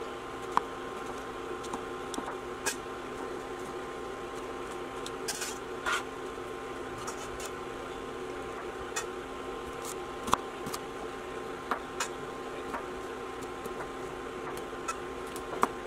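Knife cutting vegetables (yellow pepper, broccoli) directly on a marble countertop: scattered sharp knocks of the blade hitting the stone, about a dozen, irregularly spaced, the loudest about ten seconds in. Under them a steady hum with a few fixed tones from the running induction cooktop under a boiling pot.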